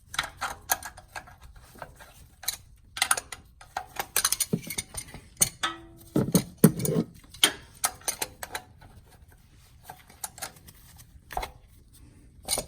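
Oil filter wrench clicking and knocking on the oil filter as it is worked to break the filter loose: irregular metallic clicks and clatter, heavier knocks around the middle, and a short squeak about five and a half seconds in.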